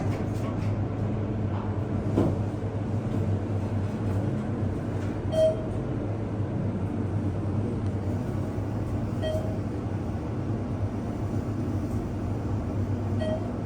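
ThyssenKrupp elevator car running down, with a steady low hum inside the cab. A short beep sounds three times, about four seconds apart.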